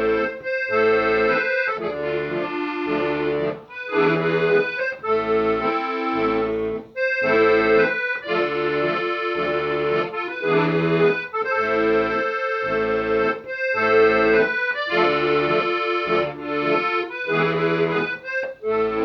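Accordion music: a melody over low bass notes and chords, played in phrases with short breaks between them.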